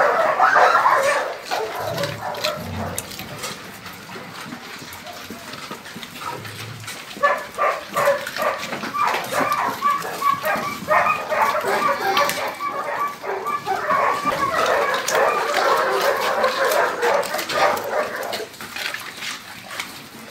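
A large pack of dogs barking and yelping over one another, thickest from about seven seconds in until near the end.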